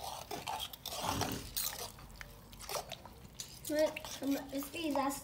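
Clicks and knocks of a cooking pot being handled, with a little liquid sound from the rice and peas. A voice talks in the background from about three and a half seconds in.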